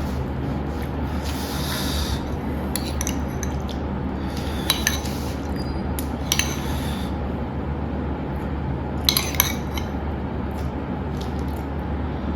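Cutlery and dishes clinking several times, the sharpest clinks about nine seconds in, over a steady low background hum.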